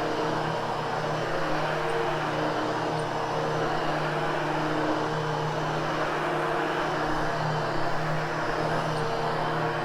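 Hoover HushTone vacuum cleaner running steadily on carpet, a constant motor hum under a rush of air.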